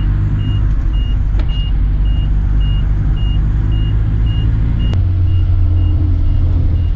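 A car engine running steadily, its note changing to a deeper, stronger hum about five seconds in, with a short high beep repeating about twice a second throughout.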